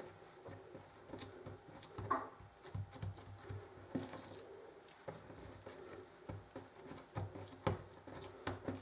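Hands patting and pressing soft pieces of dough flat on an oiled countertop: faint, irregular soft taps and pats.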